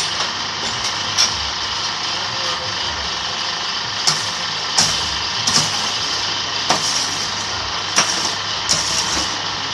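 Electric concrete-block press machine running: a steady electric-motor hum and rattle, with sharp knocks at irregular intervals, about every second.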